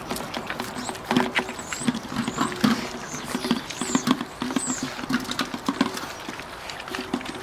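Several bulldog puppies eating raw minced meat from a stainless steel bowl: busy wet smacking and chewing, with many small clicks of snouts and teeth against the metal.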